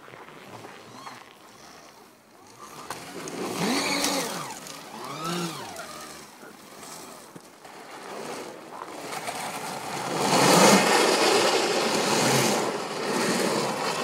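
Electric snowmobile driving through deep snow: a pitched motor whine rises and falls twice, then the track and spraying snow grow loud for a few seconds as the machine comes close.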